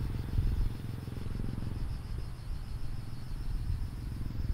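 A low, uneven rumble with a steady, pulsing chirr of insects above it.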